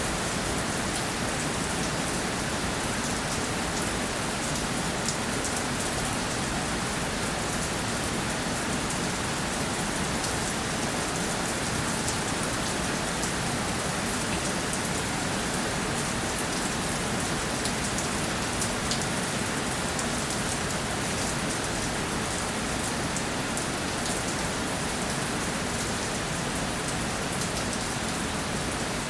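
Steady rainfall, an even hiss of rain on a surface with small scattered drop ticks.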